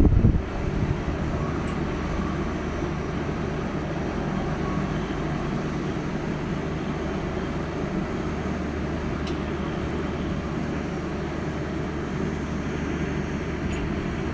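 Steady low rumble and hum of an Indian Railways express train at the station platform, after a brief loud rush at the very start.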